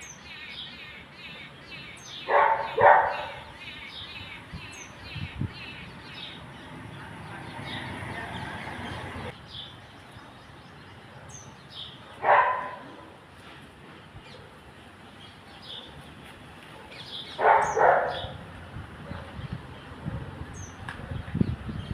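Purple sunbird calling: short, high chirps repeated about two or three a second for the first few seconds, then scattered single notes. Three louder, lower-pitched calls break in, each short, the first and last doubled.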